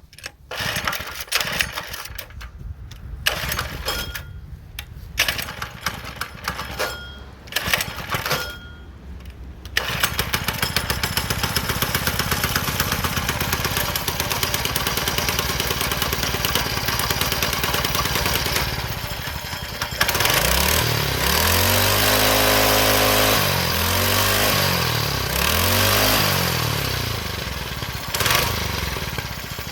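Small single-cylinder mini bike engine being pull-started, coughing in a series of short bursts for the first several seconds. About ten seconds in it catches and runs steadily on fuel poured into the air cleaner after years of sitting, then is revved up and down several times.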